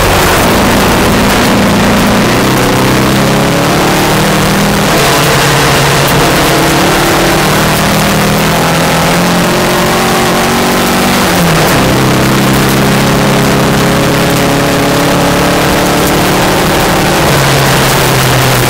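VW Beetle rally car's engine under hard load, heard from inside the car on a gravel road. Its pitch climbs slowly and drops sharply about eleven seconds in and again near the end, as at gear shifts, over a steady rush of tyre and gravel noise.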